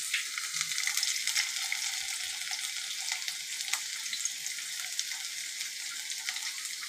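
Chopped garlic sizzling in hot oil in an aluminium kadai: a steady hiss with scattered small pops and crackles, starting as the garlic goes into the oil.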